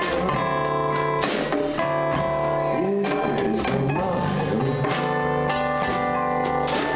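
Live band music: strummed acoustic guitar over a drum kit keeping a steady beat.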